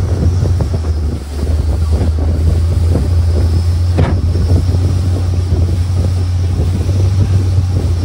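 Longtail boat's inboard engine running steadily under way, a constant low drone, with wind buffeting the microphone and water rushing past the hull.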